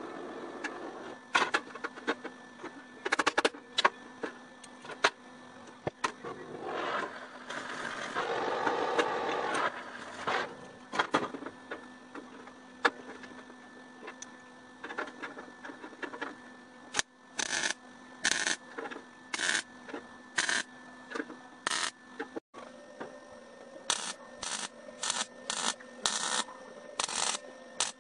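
Steel drum being worked with an oxy-acetylene cutting torch and hand tools: a hiss and scattered metal knocks. In the later part comes a steady run of short welding bursts, about one a second, from MIG tack welds.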